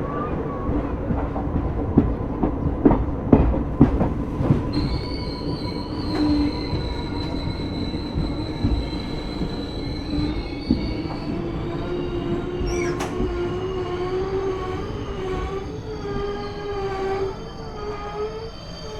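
Passenger train running on rails. Its wheels clack sharply over rail joints a few times in the first seconds, then squeal with held, wavering tones that creep up in pitch in the second half, typical of wheel flanges grinding on a curve.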